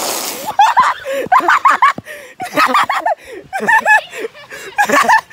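A mouthful of water spat out in a short spray, then several bursts of high-pitched laughter and shrieking.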